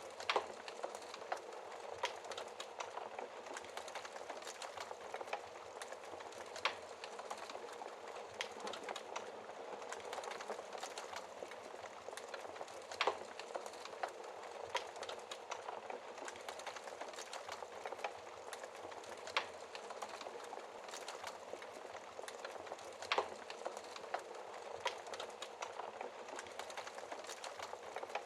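Wood fire crackling in a fireplace: a steady hiss of burning with irregular sharp pops and snaps, a dozen or so standing out louder.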